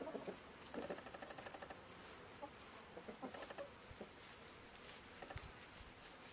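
A few short, scattered bird calls over a faint hiss, with a couple of soft low thumps near the end.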